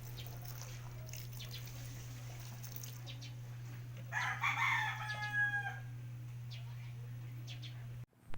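A rooster crows once, starting about four seconds in and lasting about two seconds, over a steady low hum.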